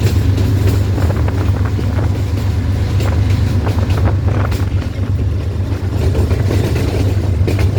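GE U20C diesel-electric locomotive under way with a steady low engine drone, with scattered clicks and knocks of the train running over the track.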